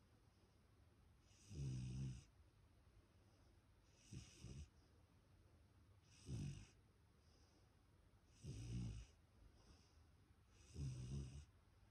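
Black Labrador puppy snoring in its sleep: five short snores at an even pace, about one every two seconds, each a low snore with a hissing edge. The second one is split into two quick breaths.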